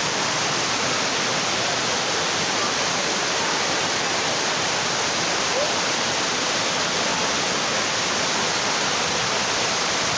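Courtallam Main Falls, a large waterfall, pouring down in a steady, dense rush of falling water.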